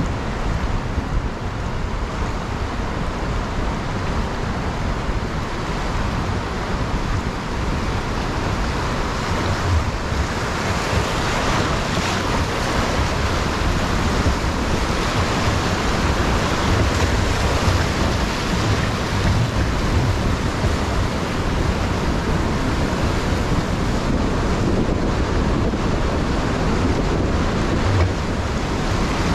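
River whitewater rushing around an oar raft running a rapid, the rush growing louder about ten seconds in as the raft moves from calm water into the white water. Wind buffets the microphone throughout.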